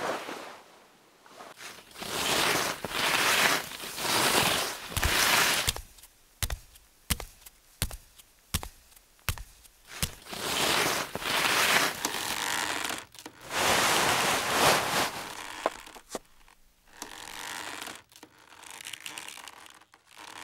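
Paper rustling and scraping in several swishes, each about a second long, with a run of sharp clicks and taps about six to nine seconds in.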